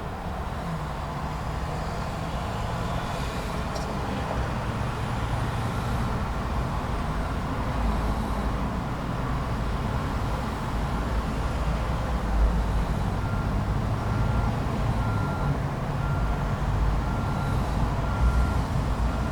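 Traffic at a busy intersection: truck and car engines running and passing with a low rumble that swells twice. About two-thirds of the way in, a vehicle's reversing alarm starts beeping about once a second.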